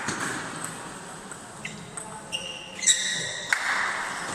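Table tennis rally: a string of light, sharp clicks of the celluloid/plastic ball on bats and table, echoing in a large hall, with a few brief high squeaks about two to three seconds in.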